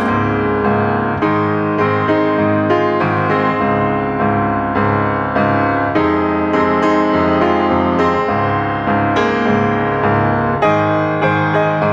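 Background piano music, notes struck one after another and ringing on.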